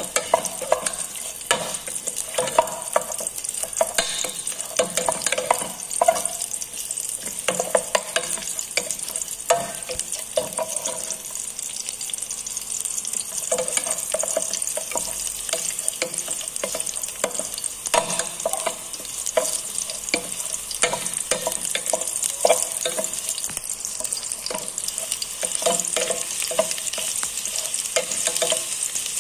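Sliced garlic sizzling in hot oil in a metal pot, stirred with a wooden spatula that scrapes and taps against the pot's bottom in frequent short clicks.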